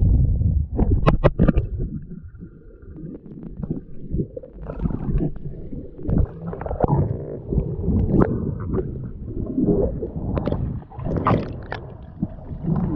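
Muffled underwater rumbling and gurgling picked up by a camera's microphone inside its housing, coming in uneven bursts and swells.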